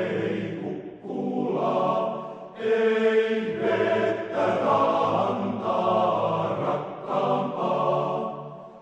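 Music with a choir of sung voices in phrases broken by short pauses, fading and cutting off near the end.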